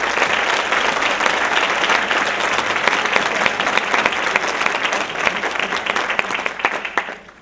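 A large audience applauding, a dense steady clatter of many hands clapping that dies away near the end.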